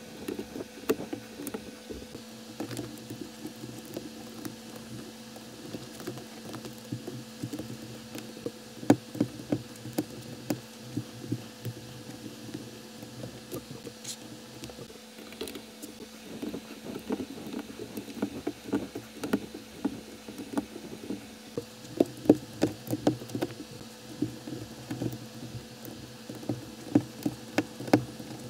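Plastic building bricks being handled and pressed together: frequent small clicks, taps and snaps of pieces, irregular and sometimes in quick runs, over a faint steady hum.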